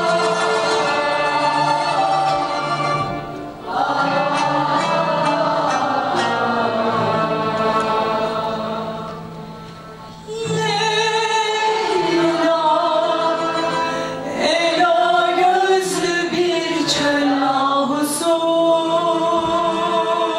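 Turkish music ensemble with violins playing. After a short dip in level about halfway, a female soloist sings over the accompaniment, her voice wavering with vibrato.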